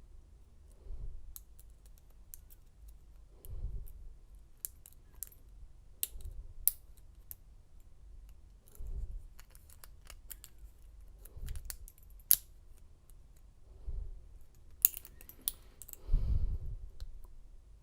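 Lock pick and tension wrench working the pin stack of an American lock core: small, sharp, irregular metallic clicks and ticks as the pins are set, with the lock in a false set. A dull low swell comes every two and a half seconds or so, the strongest near the end.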